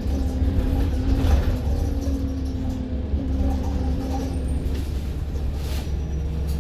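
Inside a Stagecoach London bus on the move: a steady low engine and road rumble, with a held engine drone that fades away about five seconds in.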